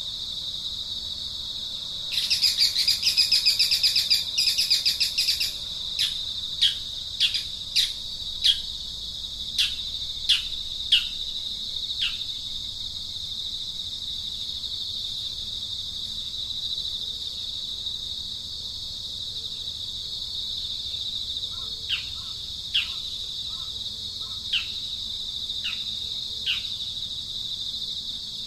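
Steady high-pitched insect drone with birds calling over it: a dense burst of rapid chirping about two seconds in, lasting some three seconds, then a string of short downward-sliding whistled notes about two a second, and a few more such notes near the end.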